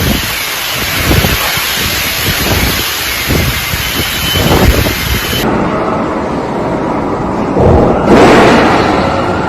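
Typhoon wind and heavy rain buffeting the microphone in gusty low rumbles. The sound changes abruptly about five and a half seconds in, and again near the end, as different recordings cut in.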